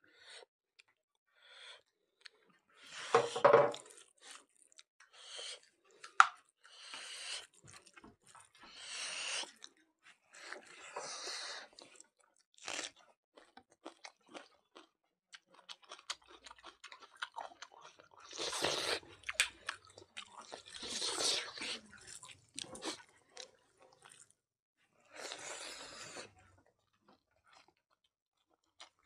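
Close-up chewing and mouth noises of a person eating rice, mutton curry and greens by hand, in irregular bursts with short pauses between mouthfuls.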